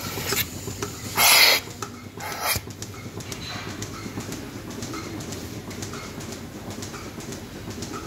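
DeLaval milking machine cluster being put on a cow's teats: a loud hiss of air drawn into a teat cup about a second in and a shorter one a second later, then the milking vacuum running steadily.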